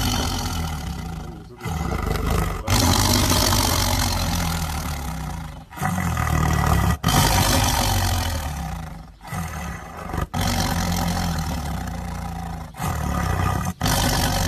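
Tiger roaring: a series of loud, rough roars, each one to three seconds long, broken off sharply between them.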